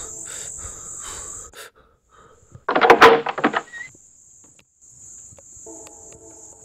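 Crickets chirring steadily, a constant high trill through the night ambience. About three seconds in comes a sudden loud, rattling clatter lasting just under a second.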